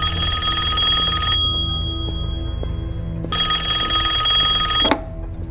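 Old-style telephone bell ringing in two rings. The first cuts off about a second and a half in, and the second starts about two seconds later and lasts about a second and a half, over low background music.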